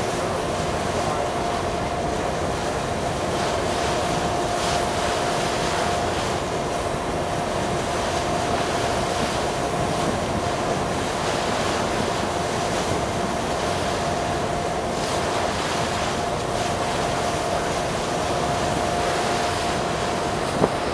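River ferry under way: a steady rush of wind and water with a constant engine hum holding one pitch beneath it.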